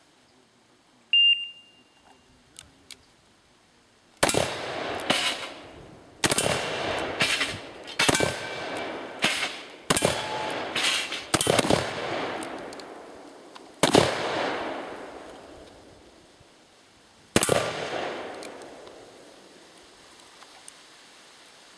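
Black-powder revolver fired in a rapid string of more than a dozen shots. Each shot is a sharp crack followed by a rolling echo. The string runs from about four seconds in to about fourteen, and one last shot comes near the end. A brief ringing ping sounds about a second in.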